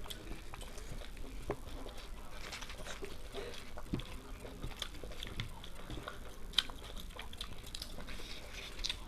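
People chewing and eating street food, with scattered small crackles and clicks from biting and from the food and plates.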